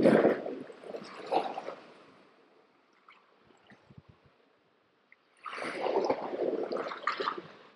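Seawater sloshing and gurgling in two spells, the first about two seconds long and the second starting past the halfway mark, with near silence in between.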